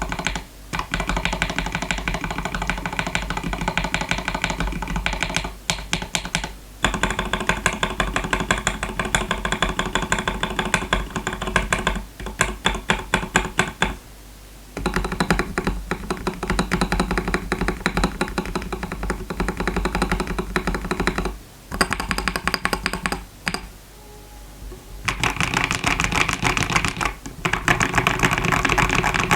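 Typing on a TM680 65% mechanical keyboard with lubed KTT Rose linear switches, SA-profile keycaps and foam and tape mods. Fast runs of keystrokes last several seconds each, broken by brief pauses.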